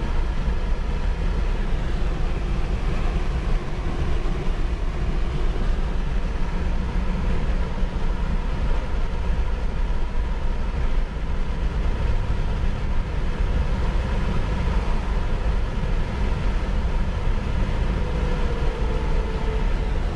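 A car driving at a steady speed, with a continuous engine and road rumble.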